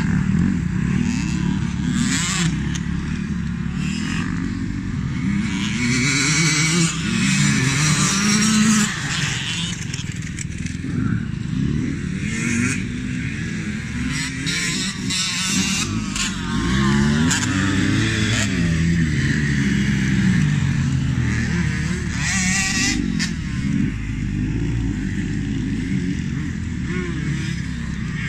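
Several motocross dirt bikes riding around a dirt track. Their engines rev up and ease off over and over, with pitches rising and falling and overlapping one another.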